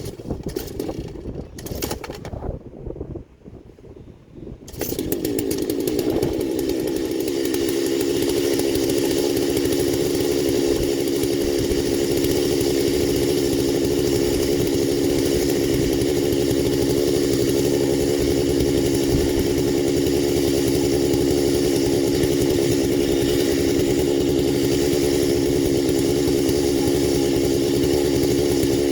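A couple of short noises, then about five seconds in a chainsaw on an Alaskan chainsaw mill comes in loud and runs steadily at high speed, ripping lengthwise through a hickory log.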